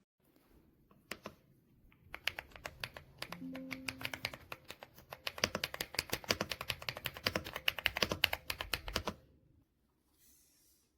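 Typing on an AULA S98 Pro mechanical keyboard: a few scattered keystrokes about a second in, then a fast, continuous run of key clicks that stops abruptly near the end.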